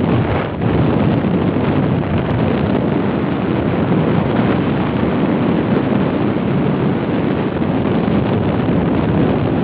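Steady wind buffeting the microphone of a moving vehicle on the road, with road and vehicle noise underneath. It dips briefly about half a second in.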